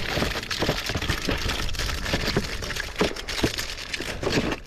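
Dry twigs and sticks crunching and crackling, with many irregular sharp snaps over a continuous rustle.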